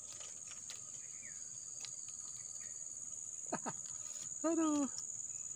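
Steady high-pitched insect chorus shrilling without a break, with a short voiced exclamation about four and a half seconds in.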